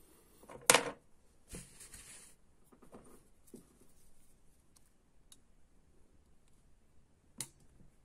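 Close handling noises of fingers and a plastic pick tool working at an air rifle's breech while seating the new breech-seal O-ring: a sharp click just under a second in, a scraping rub around a second and a half, then scattered light ticks and another click near the end.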